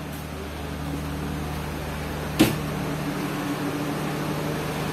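Steady mechanical hum inside a passenger train carriage, slowly growing louder, with one sharp knock about two and a half seconds in.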